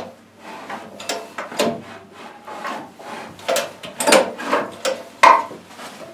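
Irregular knocks, clatter and scraping of metal engine parts being handled and moved by hand, about a dozen separate hits with no steady rhythm.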